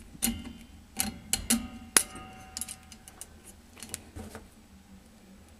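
Metal clinks and taps as pliers and a coil spring knock against the frame of a 1/8-scale freight car truck while the spring is pushed into its pocket. About two seconds in, one louder clink rings on briefly, and lighter taps follow, thinning out toward the end.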